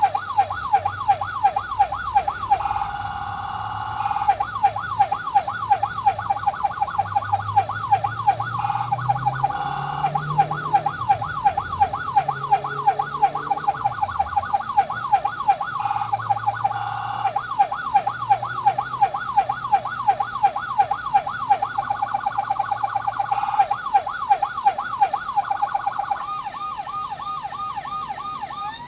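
Battery-powered electronic siren of a Playmobil 70936 US ambulance toy sounding through its small built-in speaker: fast up-and-down yelp sweeps, switching pattern several times with a brief steady tone between them.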